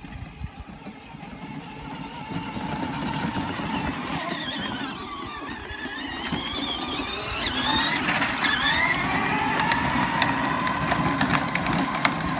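Peg Perego battery-powered ride-on toy car driving, its electric motors and gearboxes whining. The pitch rises and falls with speed, then settles into a steady whine in the second half, over a steady rumble from the wheels.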